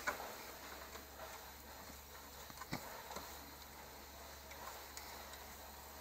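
Faint, scattered metallic clicks of a small wrench loosening a screw in a car's engine bay, with one sharper click a little under three seconds in.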